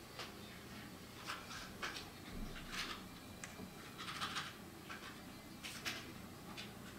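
Brush pen strokes on paper: several short swishes of the pen tip at irregular intervals.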